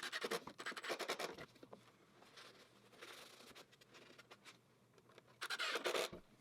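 Faint scratching and quick clicks from hand assembly work on the stairs, fitting the gluing and screwing-in of the risers: a cluster of clicks at the start, a lull, then a short scratchy burst near the end.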